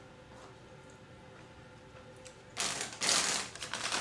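Paper bag of tortilla chips crinkling and rustling as it is handled, a dense loud crackle that starts suddenly about two and a half seconds in, after quiet room tone.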